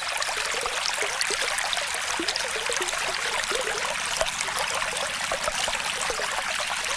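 Flowing water, a steady rush with many small gurgles, like a running stream.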